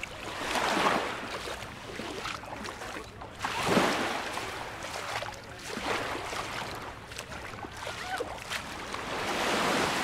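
Small waves washing up onto a pebbly sand shore, each swelling and fading, four times, about every three seconds, the loudest about four seconds in.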